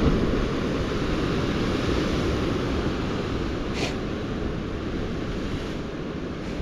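Wind buffeting the microphone over a steady rushing noise, with one short high click a little under four seconds in.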